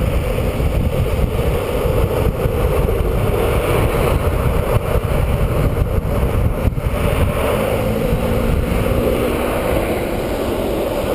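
Longboard rolling fast on asphalt on 69 mm, 78a urethane wheels: a steady roar of wheel noise with wind buffeting the microphone.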